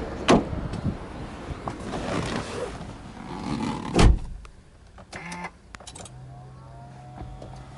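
Subaru Impreza WRX STI hatchback's door being shut with a loud thud about four seconds in, after rustling and handling. Then come a few clicks and a faint steady low electric hum as the ignition is switched on, before the engine is started.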